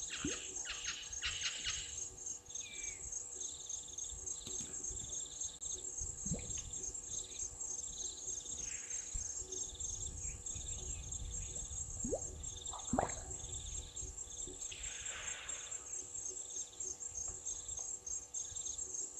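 Steady, high, fast-pulsing insect chorus, with a softer pulsed call repeating about once a second and occasional bird calls, including two quick rising whistles about two-thirds of the way through.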